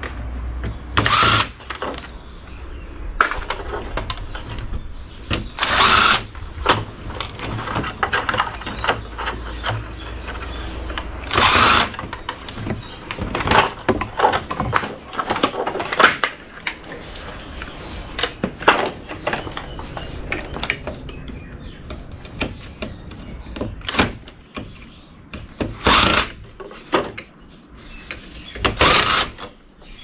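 Cordless drill-driver running in short bursts as it backs screws out of a metal chassis for about the first ten seconds, then repeated knocks and rattles of the sheet-metal chassis and loosened parts being handled.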